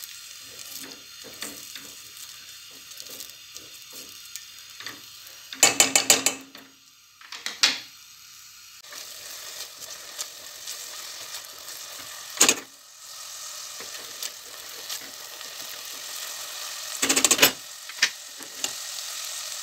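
Diced onion sizzling in olive oil in a stainless steel pot, stirred with a silicone spatula that scrapes softly over the bottom. A few louder clattering knocks break in, about six seconds in, around twelve seconds, and again near the end.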